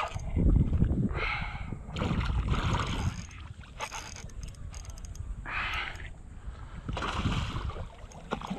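Water splashing and sloshing beside a kayak as a hooked fish thrashes at the surface, with wind rumbling on the microphone, loudest in the first second.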